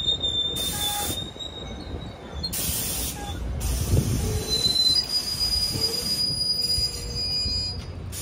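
NJ Transit Comet V passenger coaches rolling past, their wheels rumbling on the rails with a thin, high, steady squeal. Two brief bursts of hiss come in the first few seconds.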